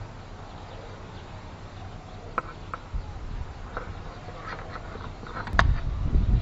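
A metal spoon clinking against a stainless-steel bowl and food jar as food is scraped across, a few sharp clinks with a brief ring, the loudest about five and a half seconds in. From then on a low rumbling rustle of handling joins in.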